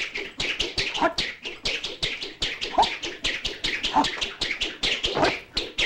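Kung fu film fight sound effects: rapid sharp snaps of punches, kicks and swishing sleeves, about five or six a second, with a short shout from the fighter every second or so.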